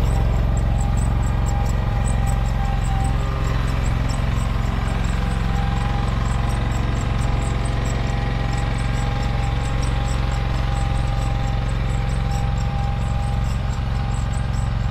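AGCO Allis garden tractor engine running steadily as the tractor drives, with faint high ticks about three times a second.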